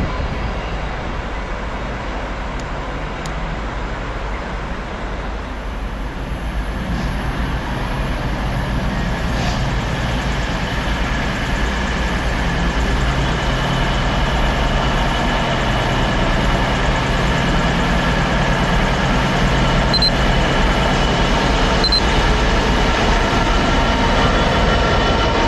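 Class 66 diesel locomotive's two-stroke engine running, growing steadily louder as it approaches at the head of a container train, its engine note joined by higher whining tones in the second half.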